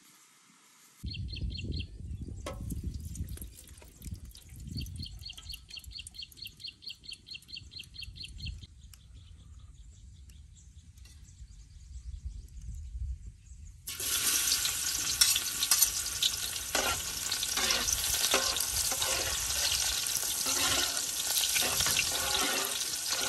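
Chopped garlic hitting hot oil in a large steel wok, sizzling loudly from about 14 s in, as it is scraped in and pushed about with a cleaver. Before that there is a low rumble, and a fast, high pulsing trill for a few seconds.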